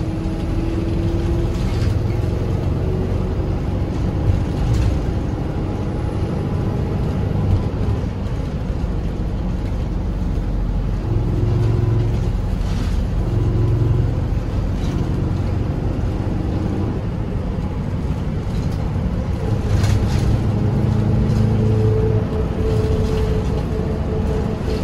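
Minibus engine and road rumble heard from inside the cabin while riding, the engine note shifting up and down with a few short rattles and clicks.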